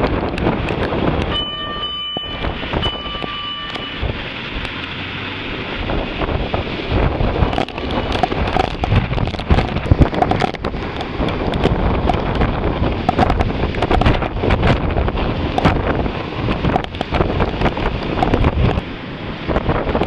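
Typhoon wind gusting hard over the microphone, with rain and crackles of buffeting. About a second in, two short steady tones sound, each lasting about a second.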